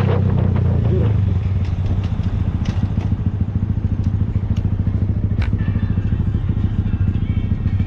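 Motorcycle engine running at low speed with a steady, fluttering low rumble, heard from the rider's helmet, with a few sharp clicks.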